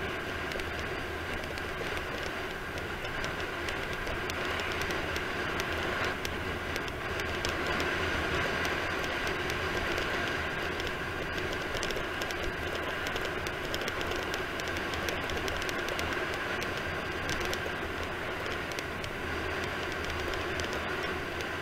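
Steady rush of wind over the camera and wheels rolling on asphalt, moving at speed down a paved road, with no breaks.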